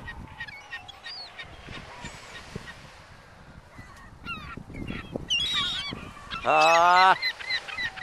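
Ring-billed gulls calling: scattered short, high squeals, then one loud, long wavering call about six and a half seconds in.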